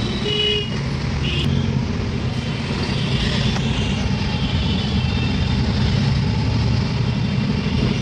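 City traffic heard from inside a moving taxi: a steady low rumble of engine and road, with several short horn toots from nearby vehicles, mostly in the first half.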